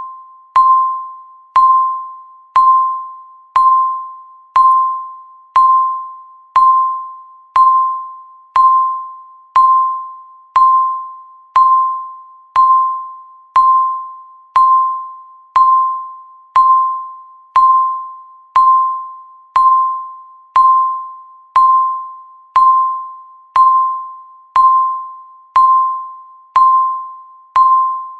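Countdown timer beeping once every second: a single-pitched electronic beep that starts sharply and fades away before the next.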